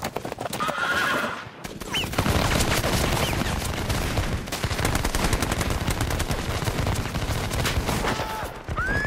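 Dense, rapid gunfire from many rifles in a movie battle soundtrack, nearly continuous from about two seconds in after a brief lull. A horse whinny starts right at the end.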